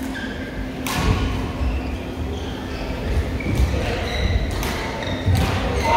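Badminton hall sounds: sharp racket-on-shuttlecock hits about a second in and again near the end, with thuds of shoes on the court floor, over background voices and a steady hum.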